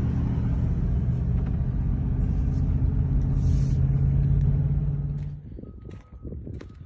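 Engine and road noise of a moving car heard from inside the cabin, a steady low hum. About five seconds in it drops away to much quieter sound with faint knocks.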